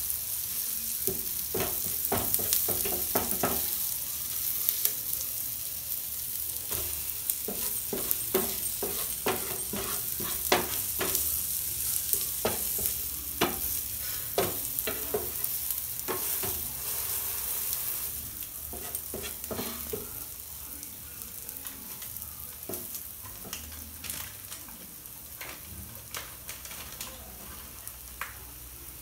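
Kulcha frying in butter with onions and tomatoes on a flat pan, sizzling steadily, while a wooden spatula scrapes and taps against the pan as the bread is pressed and turned. The sizzle gets quieter after about two-thirds of the way through.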